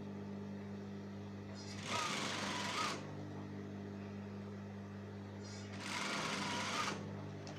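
Sewing machine stitching in two short runs of about a second each, one about two seconds in and one near the end, over a steady low hum.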